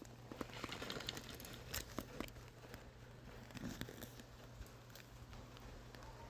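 Rain falling, with irregular drops tapping and crackling on nearby surfaces over a steady hiss and a faint low hum.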